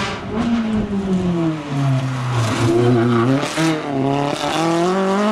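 Rally car engine under hard driving: the revs fall about a second in and hold low with quick rises and dips, then climb steadily near the end as it accelerates.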